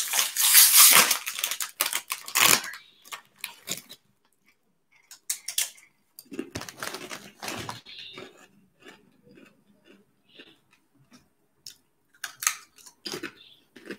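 Plastic chip bag crinkling loudly as it is pulled open right by the microphone for the first couple of seconds, then chips crunching in short bursts as they are bitten and chewed.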